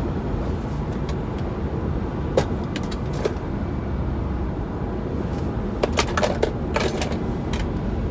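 Steady road and engine rumble inside a moving car's cabin, with a few light clicks scattered through it.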